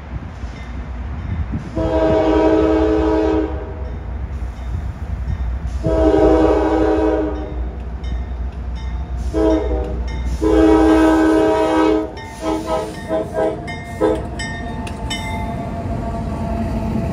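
GE AC44C6M diesel locomotive's air horn blowing the grade-crossing signal, long, long, short, long, then a quick series of short blasts. A steady low rumble from the diesel locomotives runs under it as the lead unit passes close by.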